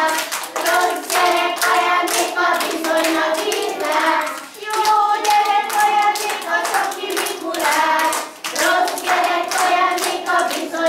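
A group of kindergarten children singing a song together while clapping their hands in a steady rhythm.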